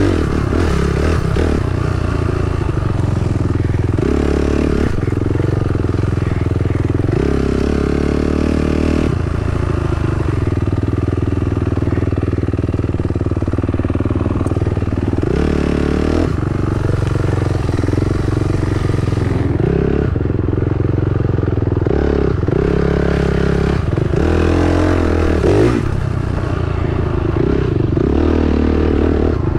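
Dirt bike engine being ridden, its pitch rising and falling with the throttle, with several quick revs.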